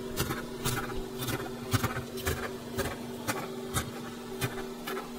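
Chef's knife slicing rolled basil leaves into thin ribbons (chiffonade), the blade knocking on the cutting board about twice a second, over a steady low hum.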